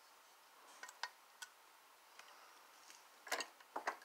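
A few light clicks and taps from a K-Line toy steam locomotive being handled, then a short cluster of louder knocks about three seconds in as it is set down on the shelf.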